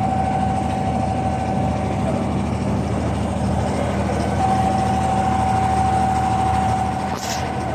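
Wooden abra water taxi's inboard diesel engine running steadily under way: a low drone with a steady whine over it, and water wash. A short hiss and a slight drop in level come near the end.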